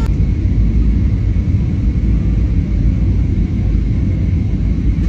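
Airliner cabin noise: a steady low rumble of engines and airflow heard from inside the passenger cabin during heavy turbulence.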